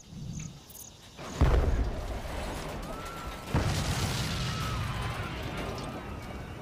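Two deep explosion booms about two seconds apart, each followed by a long low rumble that slowly fades.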